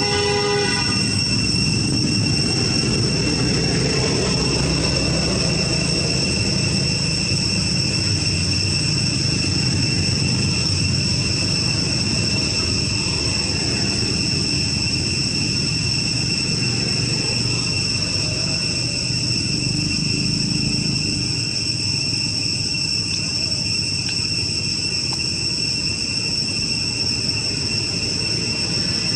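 A steady, unbroken high whine holding two pitches, typical of a chorus of forest insects, over a continuous low rumble.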